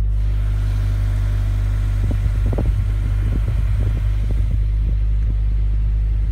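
Scion FR-S's 2.0-litre flat-four engine running steadily with a high-pitched whine from the engine bay. The owner is unsure whether the whine comes from the engine or the transmission; it is most audible when cold. A few irregular light knocks come through in the middle seconds.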